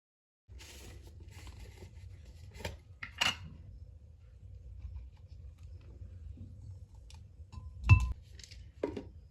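A few light knocks and clinks of household objects being handled, over a low steady hum. The loudest knock comes near the end.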